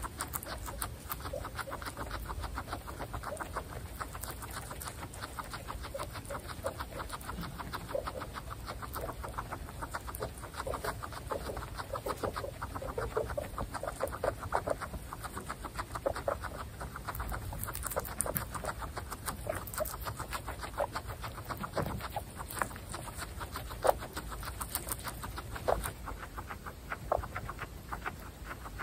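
Several guinea pigs munching fresh grass close to the microphone: rapid, overlapping crunching and tearing of the blades as they chew.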